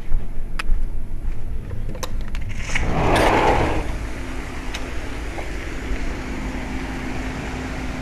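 A sliding glass door is unlatched with a couple of clicks and slid open with a rushing scrape about three seconds in. After that comes a steady outdoor hum with a low drone from a Goodman heat pump condensing unit running below.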